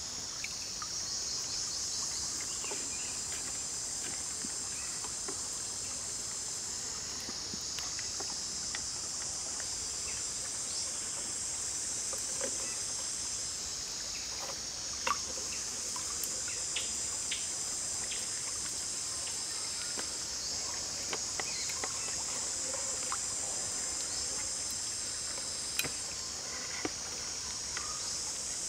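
A steady, high-pitched chorus of insects buzzing, dipping briefly a few times, with scattered faint clicks and taps from hands handling a raw chicken and tying it with string.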